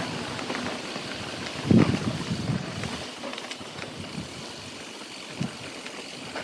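Mountain bike rolling along a dirt trail: a steady rush of tyre and wind noise with scattered clicks and rattles, and a louder thump nearly two seconds in.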